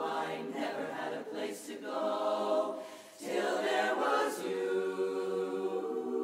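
Women's barbershop chorus singing a cappella in close harmony, holding sustained chords, with a brief break in the sound about three seconds in.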